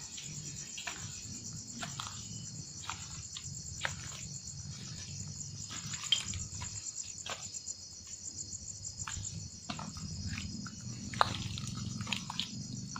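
Night insects trilling in a steady, high, rapidly pulsing chorus, with scattered faint clicks and knocks.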